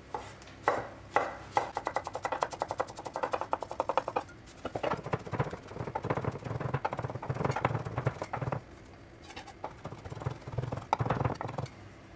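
Santoku knife rapidly chopping a garlic clove on a wooden cutting board: quick runs of many blade strikes a second, easing off about two-thirds of the way through, then one more short run near the end.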